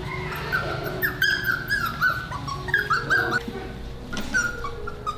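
Golden retriever puppy whining: a rapid string of short, high-pitched whines, a brief pause about three and a half seconds in, then a few more near the end.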